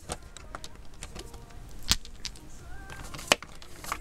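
Hard cast-resin poker chips clicking against one another as they are handled and set down, a few sharp separate clicks with the loudest about two seconds in.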